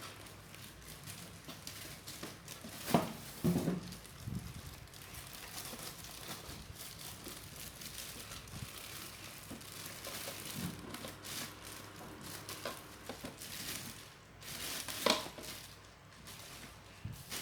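Packaging being handled during an unboxing: crinkling and rustling of wrapping, with a few sharp knocks, loudest about three seconds in and again near the end.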